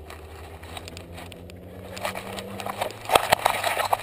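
Rustling, scraping and sharp knocks right on a GoPro Hero2 camera as a hand handles it where it is strapped to a dog's harness. The sound builds from about two seconds in and is loudest near the end.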